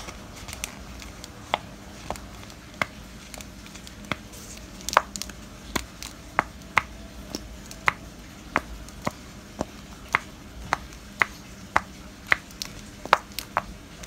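Homemade pop-it fidget toy made from thin recycled-bottle plastic, its domes pressed in by fingers one after another: a string of sharp popping clicks, about two a second at an uneven pace, some louder than others.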